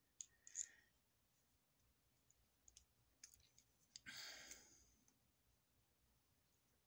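Near silence with a few faint, sharp clicks of small nitro RC carburetor parts being handled and fitted by hand. A brief soft breath-like rush comes about four seconds in.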